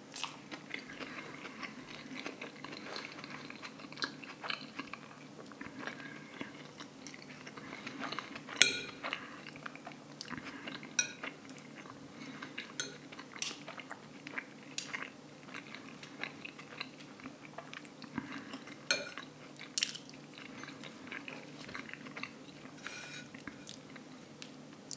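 Metal fork and knife clicking and scraping against a plate as a chicken burger is cut up, with chewing and crunching of the burger between. Sharp clicks come scattered throughout, the loudest about nine seconds in.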